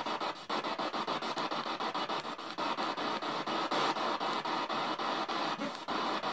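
Spirit box (ghost box) radio sweeping the band: hissing radio static chopped into rapid, even pulses, about nine a second, as it jumps from station to station.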